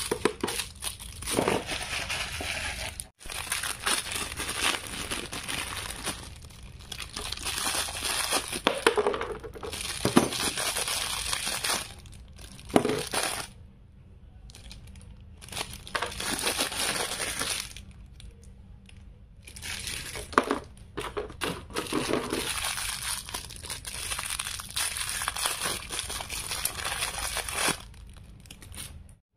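Parcel packaging being crinkled, crumpled and torn open by hand, in bursts of a few seconds with short pauses between them and sharp clicks and rustles throughout.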